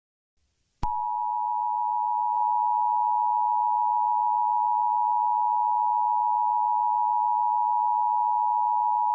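Emergency Alert System attention signal: a steady two-tone alert (853 and 960 Hz) that starts abruptly about a second in, holds unchanged for about eight seconds, then cuts off. It is the tone that announces an emergency alert message.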